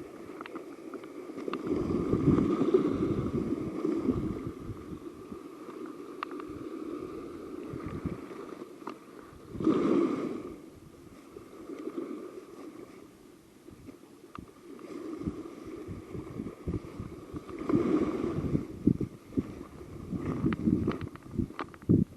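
Wind gusting against the microphone in swells that rise and fade, loudest a couple of seconds in, around ten seconds in and again near the end, with scattered short clicks.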